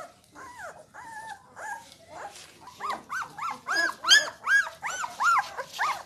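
A two-week-old puppy crying with high, whining yelps. A few scattered cries come first, then from about halfway through a steady run of louder yelps at about three a second, each rising and falling in pitch.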